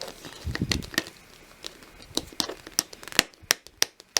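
Sticky tape being peeled and picked off a plastic surprise egg: irregular crackles and sharp ticks, with a few soft handling knocks in the first second.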